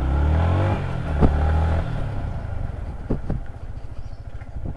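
Motorcycle engine revving as the bike pulls away, then running on at a steadier pitch, with a few sharp knocks.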